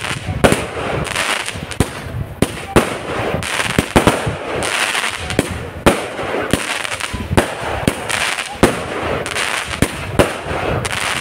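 A 70-shot fireworks cake firing: sharp bangs about once a second, with crackling star bursts filling the gaps.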